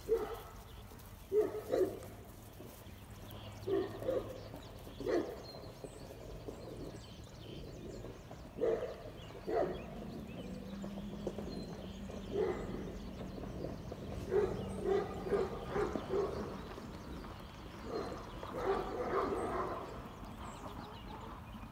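Great Pyrenees puppies giving short, sharp barks and yips, one or two at a time every few seconds, with a quick run of them in the middle and another near the end.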